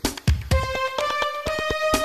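Electronic theme music: sharp drum hits, then from about a quarter of the way in, held synth notes that step upward in pitch.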